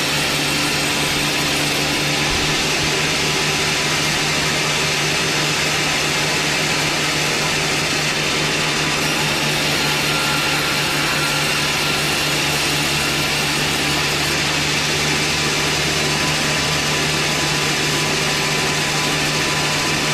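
Sawmill power saw running steadily: a constant mechanical drone with a low hum and dense high hiss, unchanging throughout.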